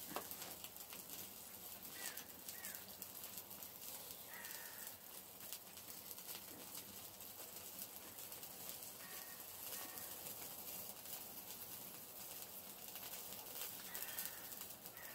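Faint outdoor ambience with a bird calling now and then: short chirps, some falling in pitch, a handful of times.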